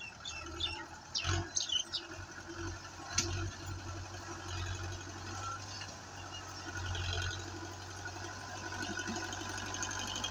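Belarus 510 tractor's diesel engine running steadily while the tractor works forward through loose sand, with a rhythmic mechanical clatter. It grows gradually louder as the tractor comes closer.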